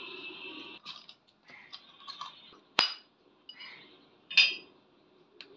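Metal clinks and sharp knocks as a steel hole saw cup, with a cut wooden disc jammed inside, is handled and struck with a claw hammer to free the disc. The two loudest knocks come about a second and a half apart.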